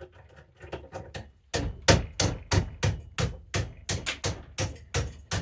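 Hammer blows on a stuck ice auger drill bit part to knock it loose: a few light knocks, then from about a second and a half in a steady run of hard strikes, about three a second.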